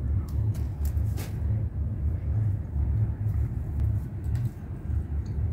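Person chewing a crisp fried karanji pastry, with a few short crunchy clicks, over a steady uneven low rumble.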